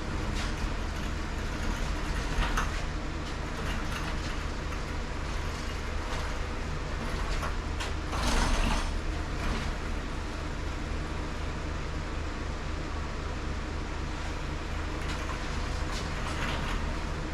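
A steady low mechanical hum with scattered light knocks, and a brief louder rush of noise about eight seconds in.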